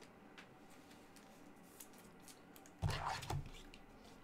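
Quiet room tone with a few faint clicks as trading cards are handled, and a brief louder low sound about three seconds in.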